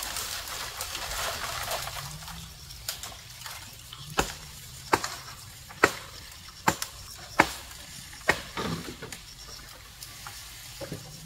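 Wood being chopped by hand with a blade: a run of sharp chopping strokes, about one a second.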